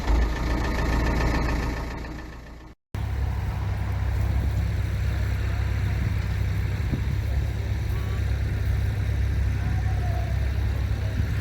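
Tractor engine running steadily at low revs. After a short silent break about three seconds in, it continues as a steady low drone.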